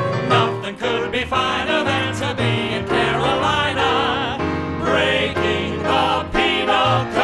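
Musical-revue show tune: several voices holding long sung notes with vibrato over instrumental accompaniment.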